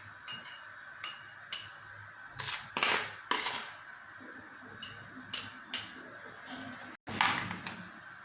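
A metal spoon clinking and scraping against glass dessert cups while they are filled in layers: a dozen or so irregular taps, some with short glassy rings, the loudest a longer scrape about three seconds in.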